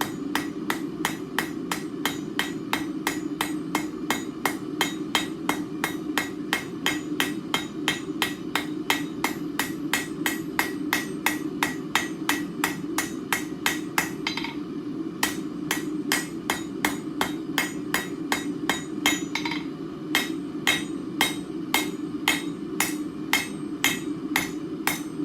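Blacksmith's hand hammer striking a hot steel bar on an anvil in a quick, even rhythm of about three to four blows a second, rounding off the bar. The hammering breaks off briefly about 14 seconds in, then resumes.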